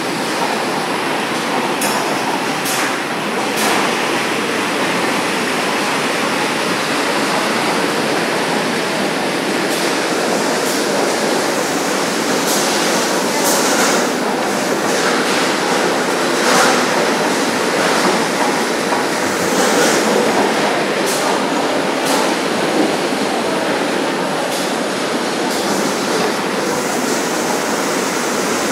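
240 kg double-arm dough mixer running, its motor, gearing and mixing arms working a large batch of bread dough in a steady loud mechanical rush, with sharp knocks now and then.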